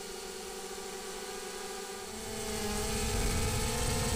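Multirotor drone's electric motors and propellers whirring, heard from the camera on board; the whine gets louder and rises slightly in pitch about two seconds in, with a low rumble joining it.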